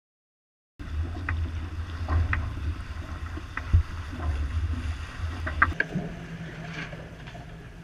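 Sounds aboard a J80 racing sailboat under sail: wind rumbling on the microphone over the rush of water along the hull, with scattered small clicks and knocks. The sound starts about a second in, and the low wind rumble eases about two-thirds of the way through.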